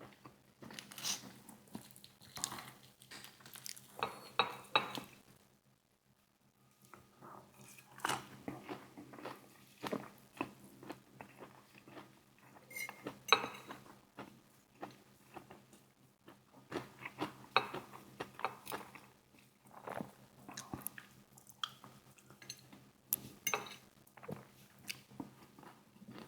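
Close-up eating sounds: bites into KFC Hot & Spicy fried chicken wings, crispy breading crunching, and chewing in irregular bursts, with a short pause partway through. Now and then a light clink of dishes.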